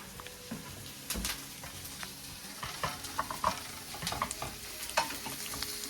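Onions sizzling in a frying pan while a utensil stirs them, with repeated scrapes, clicks and knocks against the pan from about a second in.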